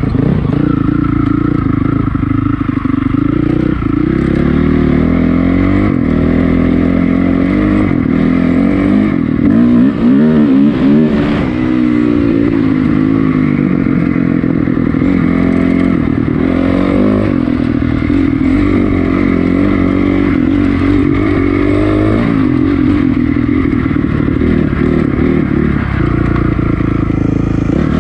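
2006 Honda CRF450R's single-cylinder four-stroke engine being ridden, its pitch rising and falling over and over with the throttle. It revs hardest and loudest around ten seconds in.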